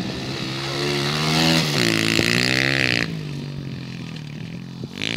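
Pit bike's small single-cylinder engine revving under throttle as the bike rides off. The pitch climbs to its loudest about two seconds in, falls away sharply as the throttle is closed about a second later, and picks up again near the end.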